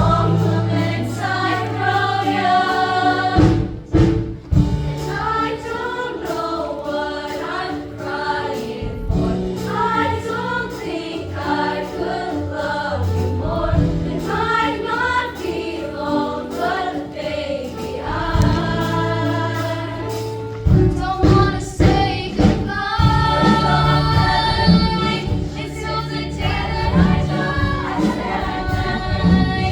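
Gospel-style choir singing with a band, steady bass and a beat.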